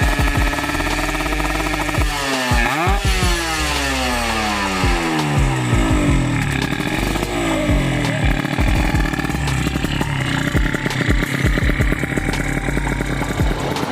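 Kawasaki Ninja two-stroke racing motorcycle engine revved: its pitch rises sharply about two to three seconds in, then falls away over several seconds before settling into a steadier running note. It runs unevenly, with the coughing and stuttering that the title says the bike has.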